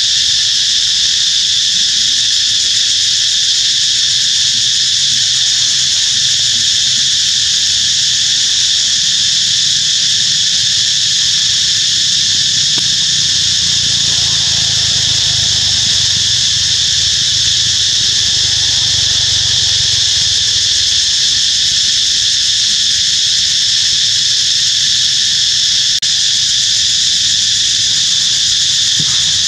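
A loud, steady insect chorus: a continuous shrill drone in several high pitches. A faint low rumble comes in about halfway through.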